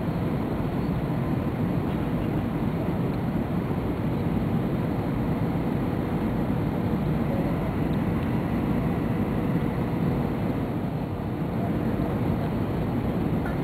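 Steady cabin noise inside an Airbus A320 on final approach: engine and airflow rumble, even in level throughout, with a faint steady hum on top.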